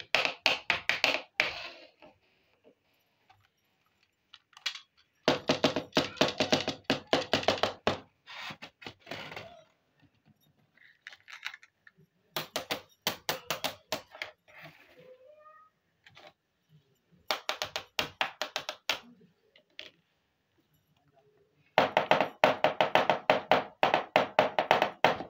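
Small plastic toy pieces tapped and clicking in quick runs, five runs of one to three seconds each with short pauses between them.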